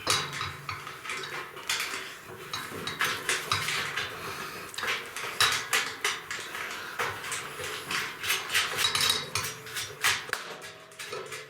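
Small metal nuts and hardware clinking and rattling in quick, irregular clicks as bolts are fastened by hand.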